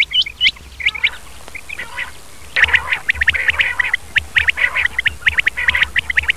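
Male quail calling: short, sharp high calls repeated for about the first second, then from about two and a half seconds in a dense, rapid chatter of overlapping calls.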